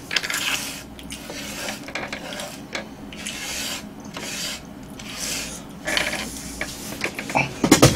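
Hands sweeping crumbled Kkobuk chip fragments across a wooden cutting board into a pile: a run of dry scraping swishes, about one a second.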